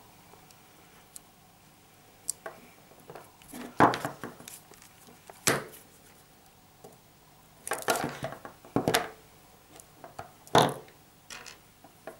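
Scattered handling noises as fingers work thin telephone wires into a crimp inside a gel-filled plastic cable repair joint: a few light clicks and knocks of the plastic case, spaced a second or more apart.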